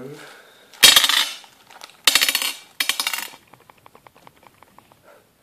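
Small metal parts of an airsoft impact grenade (tubes and a washer) clattering onto a glass tabletop. The loudest clatter comes about a second in, more rattling follows around two and three seconds in, and then light ticks as the pieces are moved about.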